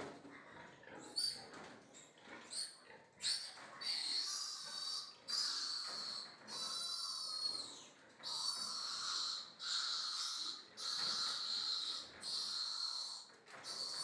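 A piglet squealing repeatedly while it is restrained for castration. A couple of short squeaks come first, then from about three seconds in a string of long, high-pitched squeals of about a second each, one after another.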